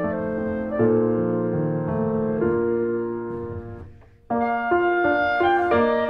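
Background music led by piano-like keyboard notes. It fades out just before four seconds in and starts again abruptly a moment later.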